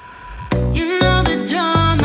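Background music: after a quiet moment, a new song starts about half a second in, with a heavy bass beat and a gliding synth melody.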